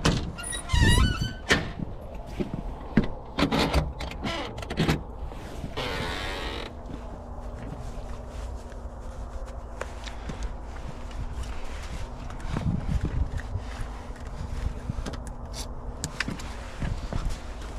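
Locksmith's tools clicking, knocking and scraping against a lock as it is worked open, with a brief squeak about a second in and a short hiss about six seconds in. A faint steady hum runs underneath from then on.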